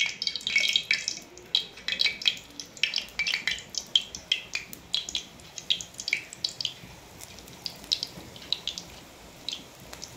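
Hot oil in a kadai sizzling and crackling as hand-dropped lumps of corn pakoda batter deep-fry. Sharp pops come thick and fast at first and thin out over the last few seconds, over a steady sizzle.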